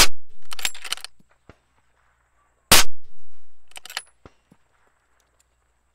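Two shots from a suppressed .300 PRC rifle, about two and three-quarter seconds apart, each a loud report. Each shot is followed within about a second by a short cluster of sharper clicks and clacks.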